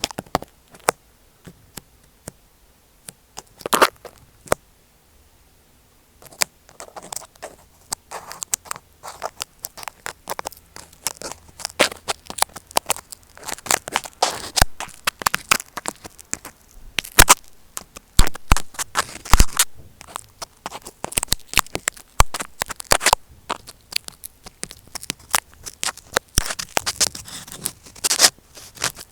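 Close-up scratching, tapping and crackling of small tools worked over tape covering an Apple EarPods microphone. A few scattered taps, a brief pause, then dense, irregular scratching with sharp clicks from about six seconds in.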